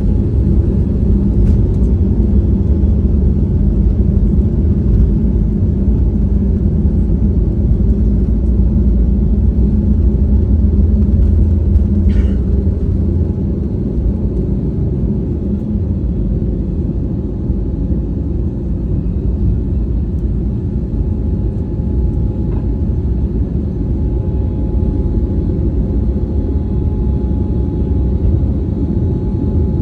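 Cabin noise of an Airbus A320-family jet on its takeoff run and initial climb: the engines at takeoff power over a heavy, deep rumble, with a few faint steady engine tones above it. The low rumble eases about 13 seconds in, as the aircraft leaves the runway.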